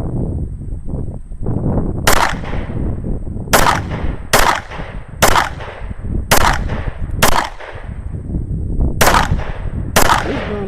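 A Glock pistol fired eight times, at roughly one-second intervals with one longer pause, each shot echoing briefly. The firing tests a red dot optic's zero after it was wetted with water. Wind rumbles on the microphone between shots.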